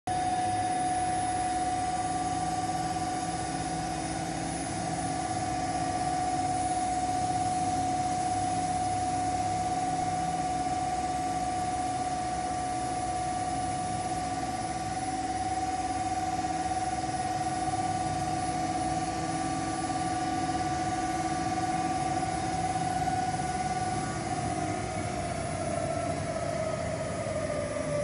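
Coaxial-cable screening machine running with a steady mechanical whine over a hum. Near the end the whine starts to drop in pitch.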